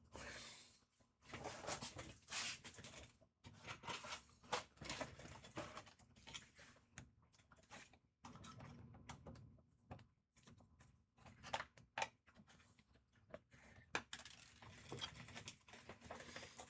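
Quiet, irregular clicks, taps and rustling of small parts and packaging being handled on a workbench.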